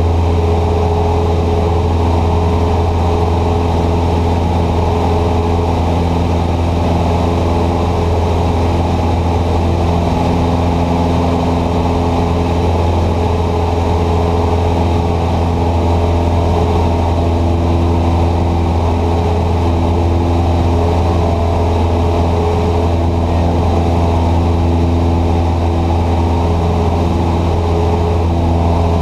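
Cessna 150's four-cylinder Continental O-200 engine and propeller droning steadily in flight, heard from inside the cockpit.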